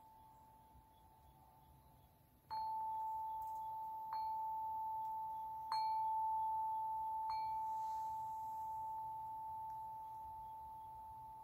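A chime struck four times at an even pace, about a second and a half apart, all on the same note, each stroke ringing on and slowly fading.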